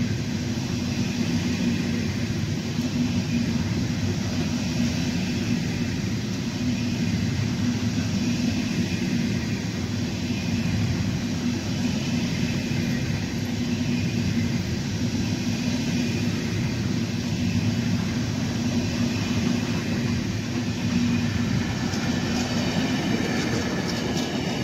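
Intermodal freight train of pocket wagons loaded with semitrailers rolling past at close range: a steady, even rumble of wheels on the rails.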